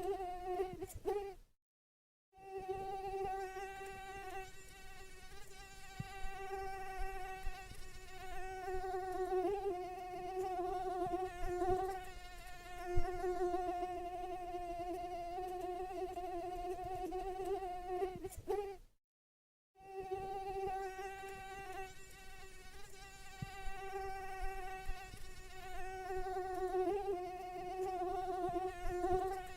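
A mosquito's wings whining in flight: a steady buzzing drone with a slightly wavering pitch. It breaks off twice into total silence for under a second, about a second and a half in and again about two-thirds of the way through.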